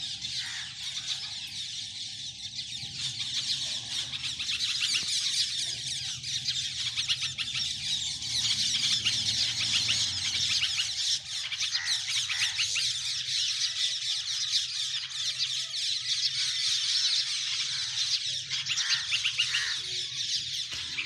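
A large flock of parrots calling together in a dense, continuous chorus of high-pitched calls, other birds mixed in. The recordist puts the calling down to a young monkey near the flock.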